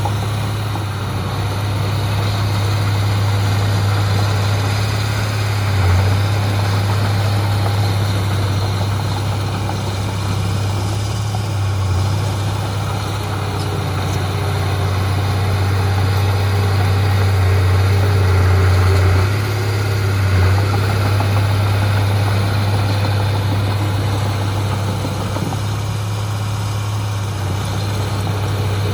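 Heavy diesel engine of earthmoving machinery running steadily with a low, even drone, swelling slightly in level a few times.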